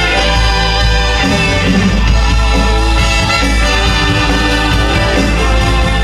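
Live band playing minimalist music: dense, sustained chords held at a steady level.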